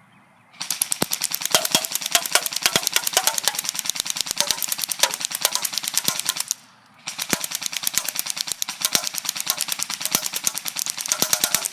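Ignite Black Ops M4 Viper airsoft rifle firing on full auto: a rapid, even rattle of shots in two long bursts. The first burst starts just after the beginning and runs about six seconds, then after a half-second pause the second runs to the end.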